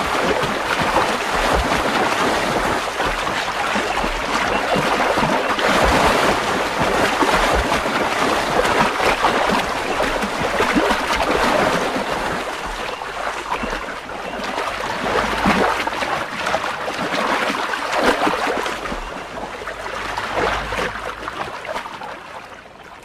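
Water splashing and churning as two male American alligators fight, with many sharp slaps and knocks through it. The thrashing eases off near the end.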